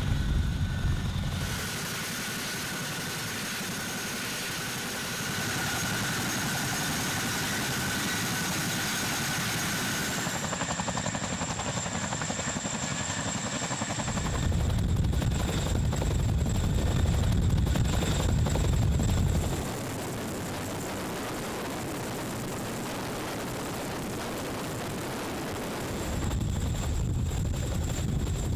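CH-47 Chinook tandem-rotor helicopter hovering, its rotors and turbine engines making a steady noise with a thin high whine. The sound jumps in level and tone several times as one clip cuts to the next.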